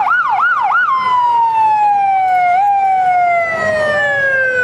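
Electronic vehicle siren in a fast yelp, about three rises and falls a second. About a second in it switches to one long tone that slides steadily down in pitch.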